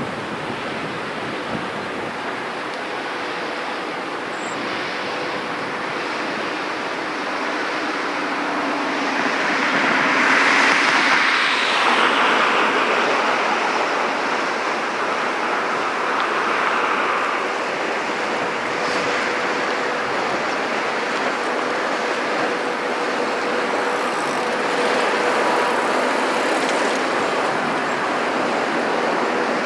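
Steady vehicle and engine noise that swells about ten seconds in, with a faint steady whine through the second half.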